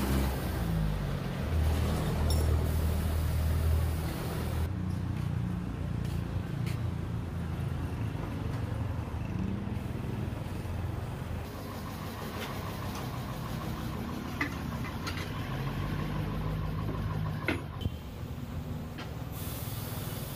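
Steady low hum of vehicle engines and traffic around a tire shop, with a few sharp knocks from the tire work. The background changes abruptly several times.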